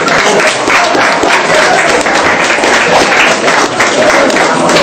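Audience of pupils clapping, a dense steady patter of many hands, with chatter underneath.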